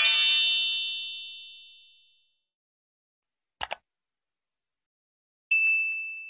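Subscribe-button animation sound effects. A ringing chime fades out over the first two seconds. A quick mouse-click double click comes about three and a half seconds in, then a single bright notification-bell ding about five and a half seconds in that rings on.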